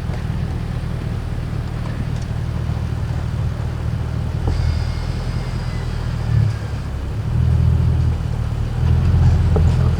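BMW E39 sedan's engine running at low speed, a steady low rumble that swells a few times in the second half as the car moves slowly.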